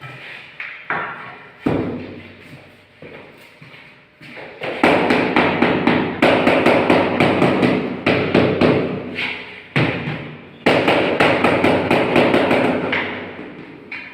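Mallet knocking on a marble floor tile to bed it down: a few separate thumps, then two spells of rapid, steady tapping lasting about five seconds and about two seconds.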